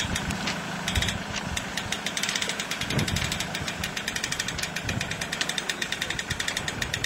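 An engine running steadily with a fast, even clatter.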